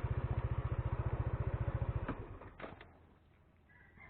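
Small motorcycle engine idling with an even, rapid putter, switched off about halfway through. A few light clicks follow as it falls quiet.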